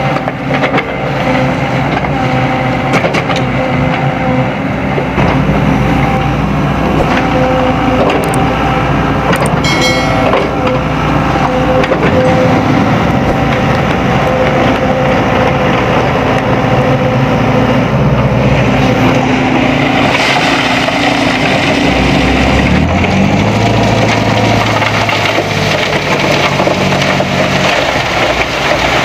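Heavy-equipment diesel engine running steadily at work, its pitch shifting about three quarters of the way through. A brief high-pitched squeal comes about a third of the way in.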